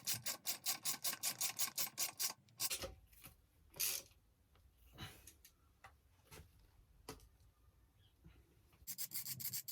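Ratchet clicking fast, about seven clicks a second, while engine mount bolts are tightened. The clicking stops after about two seconds, a few single knocks follow, and the fast clicking starts again near the end.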